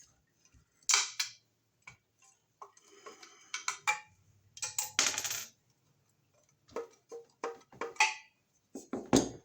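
Sharp metallic clinks and knocks, a handful of separate strikes, some ringing briefly: knockouts being opened in a metal Wiremold outlet box.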